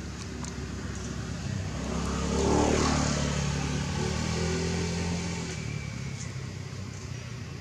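A motor vehicle drives past, getting louder to a peak about two and a half seconds in and then fading, its engine pitch dropping as it goes by, over a steady low traffic hum.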